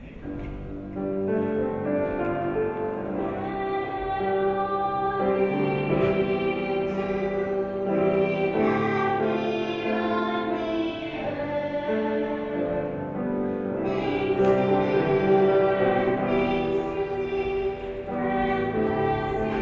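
Children's choir singing a song from a children's cantata, sustained melodic notes starting about a second in.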